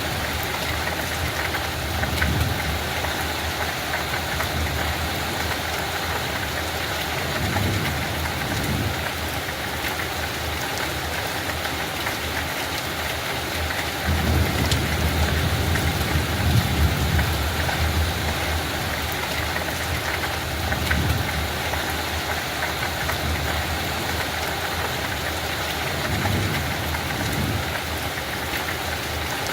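Steady light rain falling on a field, an even hiss of many drops. Low rumbling swells rise and fade every few seconds under it, the strongest about halfway through.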